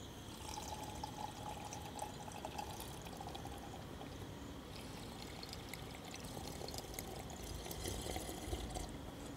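Faint pouring and trickling of a drink in a cup, with light scattered clicks.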